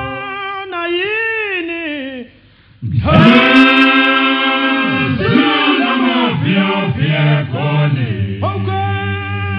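Zulu isicathamiya male choir singing a cappella in close harmony. A phrase swoops up and down, there is a short break about two and a half seconds in, and then the full choir comes back loudly on held chords.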